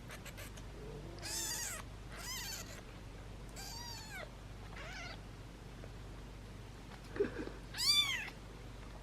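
Young kittens mewing: about five high, thin mews, each rising and then falling in pitch, the last one near the end the loudest.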